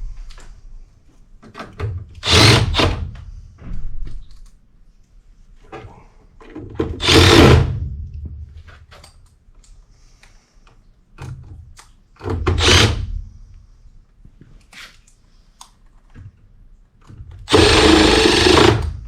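A cordless power driver running screws into sheet metal in four separate short bursts, the last one longer with a steady motor whine, with small clicks and knocks of handling between them.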